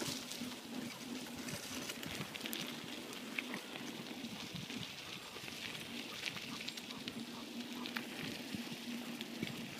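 Bicycle tyres rolling over a wet, gritty lane, giving a steady crackling hiss with many small ticks, as the bike is towed along by a running dog.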